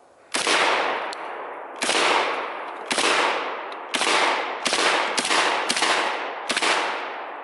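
Saiga 12 semi-automatic 12-gauge shotgun fired eight times in an uneven string, the shots coming quicker in the second half. Each shot is followed by a long echo dying away.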